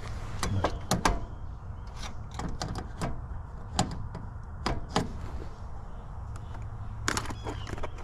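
Scattered sharp clicks and light knocks of tools and parts being handled at a heat pump's electrical compartment, with a quick run of clicks near the end, over a steady low hum.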